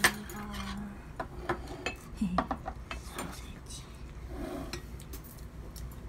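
Cutlery and tableware clinking on a dining table: a sharp clink right at the start, then a few lighter clinks and knocks over the next couple of seconds.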